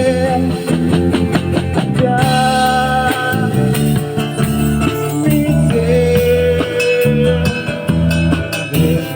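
A band playing a song: long held sung notes over guitar-led accompaniment.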